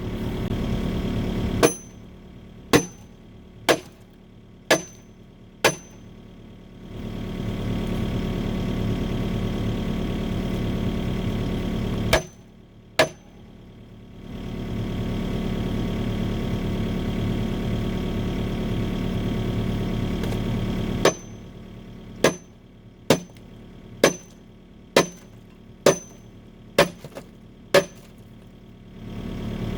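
Sledgehammer blows on hardened concrete caked inside a steel excavator bucket, each a sharp crack with a brief metallic ring, about one a second in runs of five, two and eight. Between the runs the excavator's engine runs steadily.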